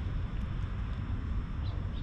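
Wind buffeting the action camera's microphone: a steady low rumble, with a faint short high chirp near the end.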